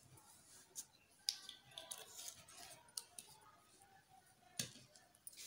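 A few faint, scattered clicks and light taps of small objects being handled in an otherwise quiet room.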